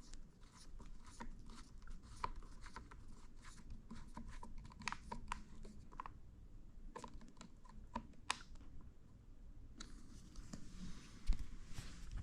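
Faint, irregular clicking and scraping of small tools and parts being handled as screws are driven back into a laser handpiece's housing, with a louder click near the end.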